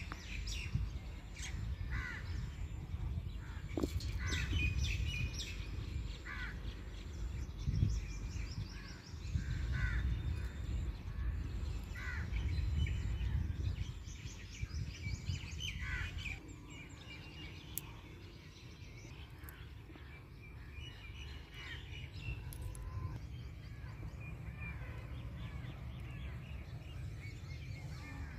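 Birds calling: many short, repeated calls, busiest in the first half. Underneath runs a low rumble that eases about halfway through.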